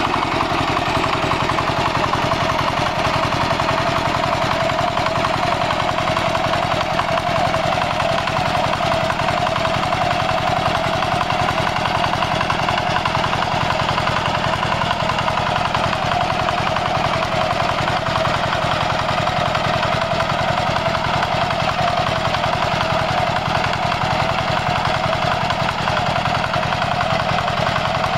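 Walking tractor's single-cylinder diesel engine running steadily with a fast, even chugging beat, working under load while it pulls a mouldboard plough through the soil.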